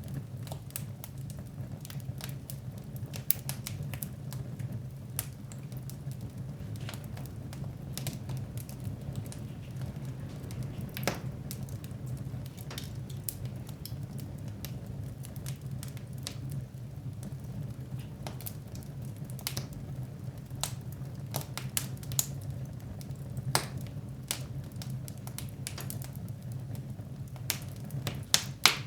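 Wood fire burning in a fireplace, crackling and popping irregularly over a low steady rumble of the flames.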